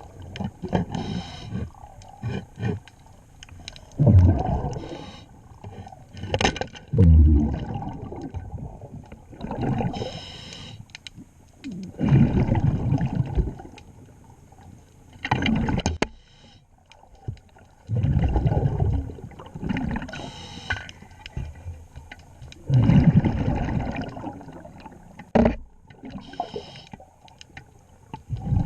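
Scuba diver breathing underwater through a regulator: hissing inhalations alternate with low gurgling rushes of exhaled bubbles, each few seconds apart. There are a couple of sharp knocks, about six and a half and twenty-five seconds in.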